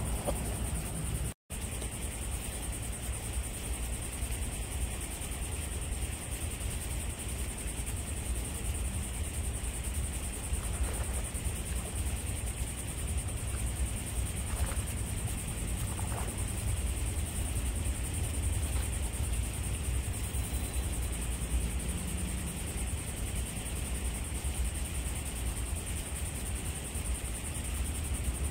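Steady outdoor background noise: a low rumble with a constant high-pitched drone over it, cut by a brief dropout about a second and a half in.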